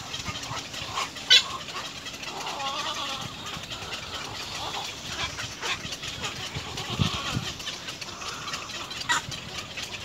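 Poultry calling in the background, with a few short calls and scattered sharp clicks; the strongest clicks come about a second in and near the end.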